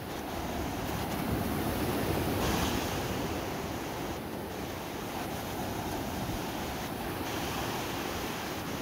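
Small Black Sea waves breaking at the shoreline and their foam washing up over the sand in a steady rush, swelling for a second or two near the start as a wave comes in.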